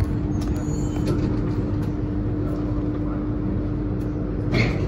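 Alstom Metropolis C830C metro train running through a tunnel, heard from inside the car: a steady low rumble of wheels on rail with a steady hum, and a short clatter about four and a half seconds in.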